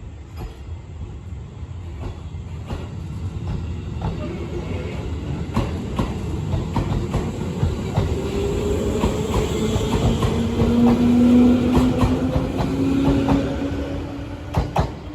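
Electric train pulling out of the station: a motor whine that rises in pitch as it accelerates, over a low rumble and wheels clicking over rail joints. It grows louder to a peak about eleven seconds in, then fades as the train moves away.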